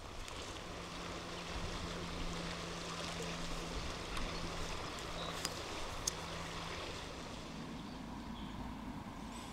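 Steady rush of river water, a small river running high after a flood, with a faint low hum for several seconds and two sharp clicks a little past the middle.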